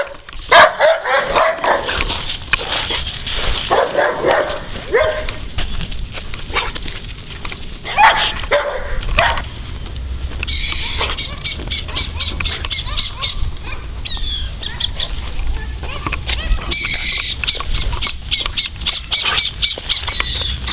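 A dog barks and whines in bursts for the first half. Then a bird calls in two rapid runs of sharp, high repeated notes, about four a second, over a low rumble.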